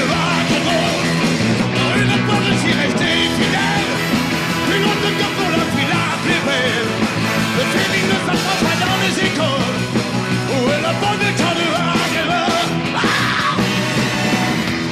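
Live rock 'n' roll band playing, with a male singer singing the lead vocal into the microphone.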